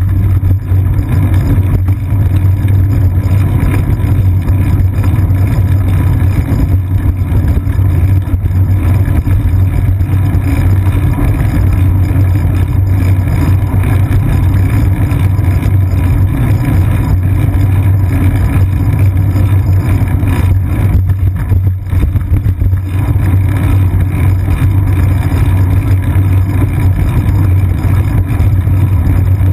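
Steady, loud low rumble of a moving bicycle picked up by a seat-post-mounted GoPro Hero 2 in its housing: road vibration and wind noise from riding along a paved path.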